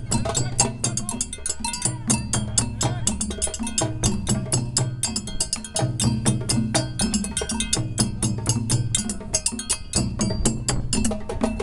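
A group of rope-tuned West African-style drums, including a large barrel drum played close by, plays a fast, continuous rhythm of many sharp strokes over repeating low drum tones.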